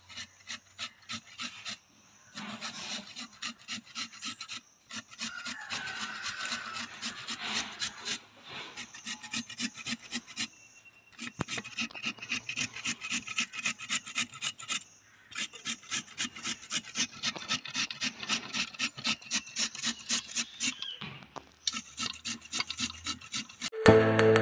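Raw potato being grated by hand on the small-hole side of a flat stainless-steel grater: quick rasping strokes in several runs with short pauses between them. Music comes in near the end.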